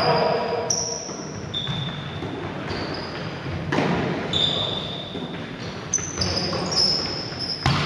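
A volleyball being struck several times in a rally, sharp slaps of hands on the ball that echo round a large sports hall, with short high squeaks of trainers on the hall floor between the hits.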